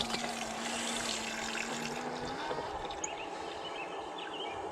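Water pouring and trickling over the hot blacksmith tongs to cool them. A steady low hum runs under it and stops a little under halfway through.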